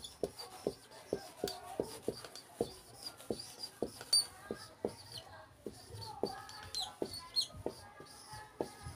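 Marker writing on a whiteboard: a run of short squeaks, about two a second, as letters are drawn. Birds chirp faintly in the background.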